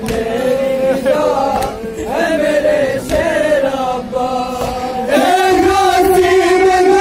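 Men chanting a noha, a Shia mourning lament. About five seconds in the singing gets louder and settles into a long held note.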